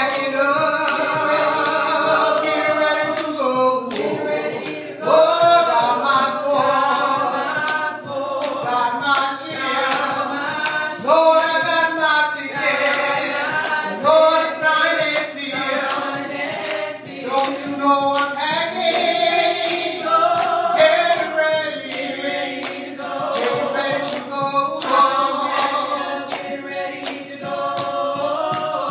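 Small mixed group of men's and women's voices singing a gospel song in harmony into microphones, with sharp taps keeping a steady beat.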